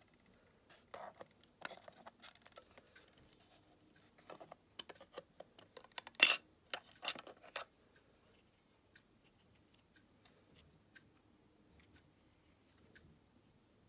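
Small clicks and scrapes of fingers handling a plastic radio back and prying off its battery cover, with a cluster of louder clicks a little past the middle as the cover comes loose.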